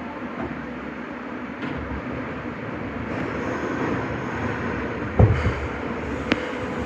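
Nagoya subway Higashiyama Line 5050-series train running, a steady rumble of wheels and running gear. There is a heavy thump about five seconds in and a sharp click about a second later.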